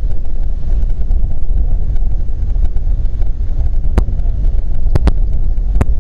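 Jet airliner's engines making a steady, loud low rumble, with a few sharp clicks about four and five seconds in.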